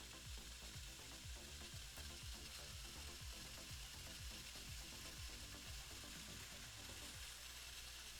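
Faint, steady hiss of a quiet room and recording noise, with faint, irregular low rumbles underneath.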